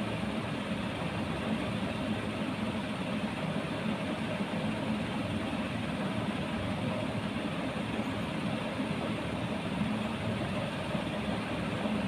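A steady, even hum and hiss runs throughout with no distinct events, like a motor or fan running.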